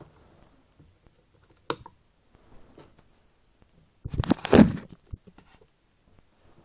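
Phone being handled and repositioned on a bed: a sharp tap about a second and a half in, then a loud burst of rubbing and knocking against the microphone about four seconds in, lasting under a second.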